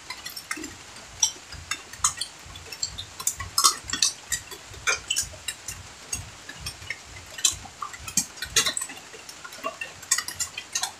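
Scattered light clinks and taps of plates and hands on a bamboo floor during a meal, with small knocks and rustles.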